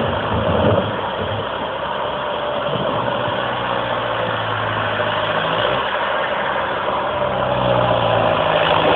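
Komatsu hydraulic excavator's diesel engine running steadily as the bucket digs in the riverbed, over the even rush of the shallow river, with the engine growing a little louder near the end as the machine swings.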